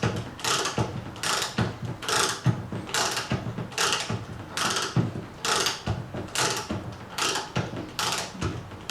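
Chain hoist lowering a heavy load: the chain is worked in even strokes, about two a second, each a rattle of chain links with the clicking of the hoist's ratchet.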